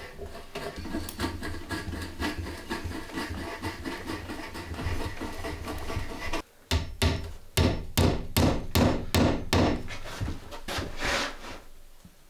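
Repeated knocking: fast light tapping over a low rumble, then, about six and a half seconds in, a run of loud sharp knocks, three or four a second, dying away near the end.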